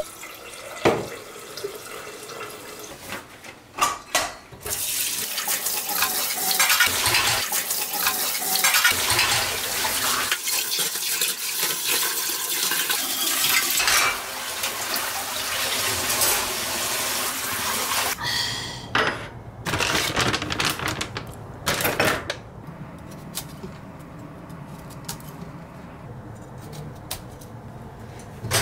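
Kitchen sink sounds: tap water running steadily for a long stretch, with dishes and cutlery clinking and knocking as they are washed and set in a dish rack. Near the end the water stops and there are several separate knocks of dishes.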